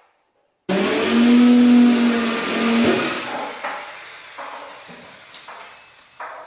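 A motor running: it starts suddenly, holds a steady hum for about two seconds, then fades away over the next few seconds.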